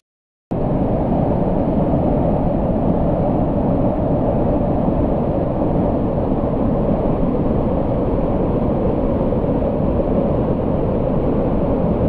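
Steady rush of falling water from a waterfall, deep and even, starting about half a second in after a moment of silence.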